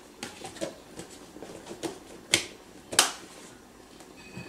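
A metal spoon clinking and tapping against glass dishes while corn is served: a few light taps, then two sharper clinks a little past the middle.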